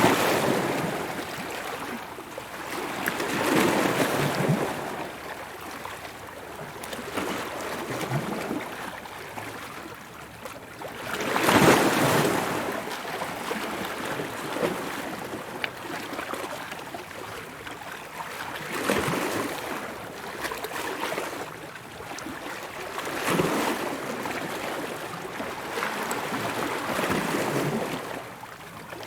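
Ocean waves breaking and washing in, swelling and fading every few seconds, with the loudest wave about twelve seconds in.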